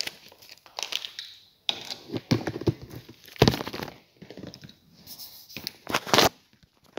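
Irregular rustling, crinkling and knocking of objects being handled close to the microphone.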